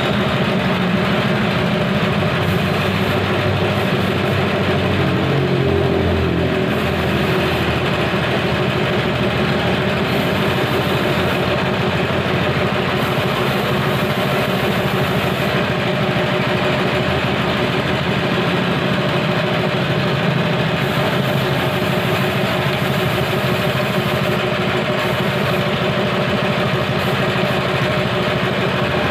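Small Ryu petrol engine running steadily while its carburettor is being adjusted, with a slight wavering in its note about five seconds in.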